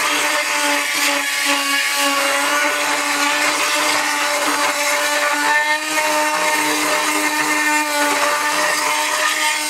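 Chicago Electric oscillating multi-tool with a carbide tile and masonry blade running against the edge of an old floor tile, cutting through the mortar. It gives a steady buzz over a gritty scraping noise, with a brief dip about six seconds in.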